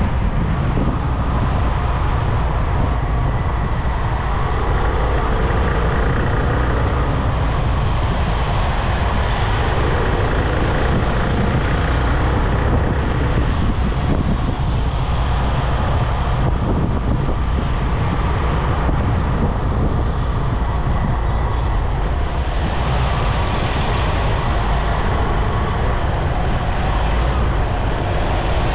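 Steady road and traffic noise of a car driving along a highway, with a deep, constant rumble and some wind.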